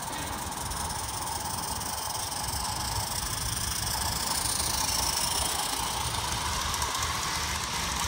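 Large-scale model train, an Accucraft Saxonian IK 0-6-0T tank locomotive hauling passenger cars and coal wagons, running past on its track with a steady rolling noise that grows louder around the middle as the train passes close.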